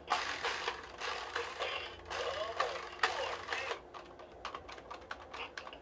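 Bop It Extreme 2 toy mid-game: its electronic voice calls commands and plays gliding sound effects, with sharp plastic clicks as its buttons, handles and lever are worked.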